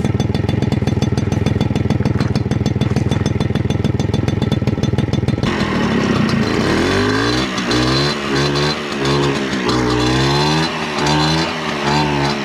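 Piaggio Ciao moped's 49 cc two-stroke single-cylinder engine running at a steady fast idle, then revved up and down repeatedly from about halfway. It is running with a previously blocked air-filter port uncovered and runs really well.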